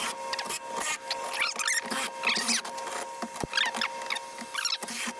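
Porter-Cable 20V cordless drill driving a step drill bit through a rusty steel plate clamped in a vise, enlarging a hole. The bit squeals and chatters in short, irregular squeaks with clicks as it cuts.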